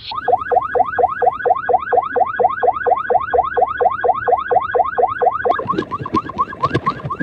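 Car alarm sounding: a rapid run of falling electronic chirps, about four or five a second, switching about five and a half seconds in to another tone pattern, a steady tone with quick rising whoops, with sharp clicks over it.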